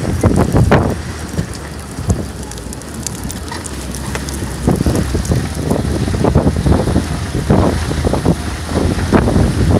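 All-terrain vehicle on low-pressure tyres driving, its engine a low drone under heavy wind buffeting on the microphone, with irregular gusts and bumps.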